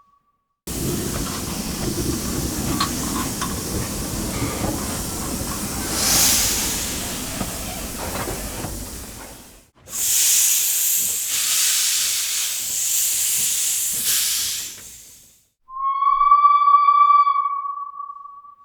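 Steam locomotive at a station: a rumbling hiss for about nine seconds, then a high steam hiss for about five seconds. Near the end its steam whistle blows one steady note for about three seconds.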